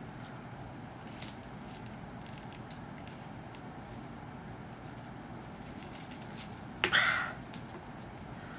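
A woman drinking cola in near quiet, with faint small clicks, then a short breathy burst from her mouth about seven seconds in.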